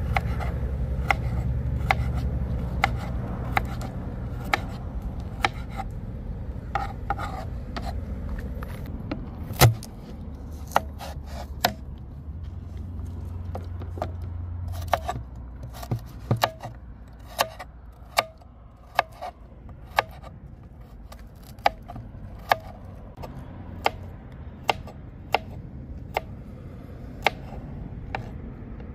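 Kitchen knife chopping carrots on a plastic cutting board: sharp single knocks of the blade striking the board at an uneven pace, about one a second, with one louder knock about ten seconds in.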